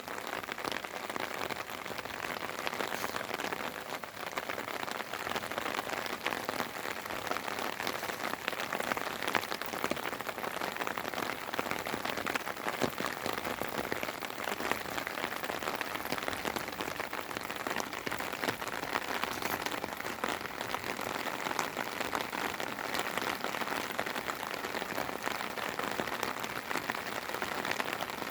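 Steady spring rain falling, a continuous patter with many close, separate droplet ticks.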